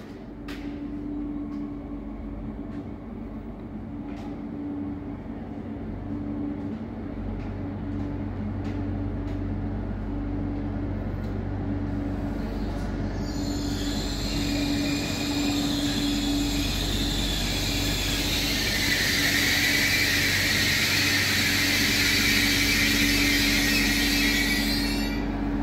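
SNCF X 76500 (AGC) diesel railcar arriving: its diesel engines drone steadily and grow louder as it approaches. About halfway through a loud, high squeal of wheels and brakes sets in as it slows, and it cuts off abruptly near the end as the train comes to a stop.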